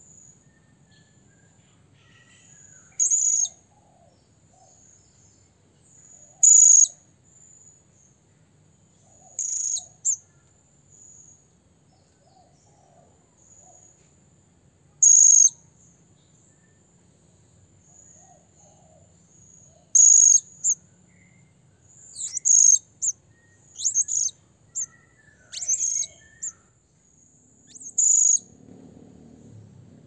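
A serindit (hanging parrot) giving short, shrill, high-pitched calls, singly or in quick pairs, about a dozen times and more often in the second half: the call used to challenge a rival. A faint steady high insect trill runs underneath.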